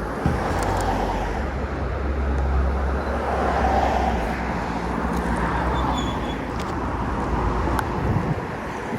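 Street traffic: a motor vehicle passes on a wet road. Its engine hum and tyre hiss swell to a peak about three to four seconds in, then ease off.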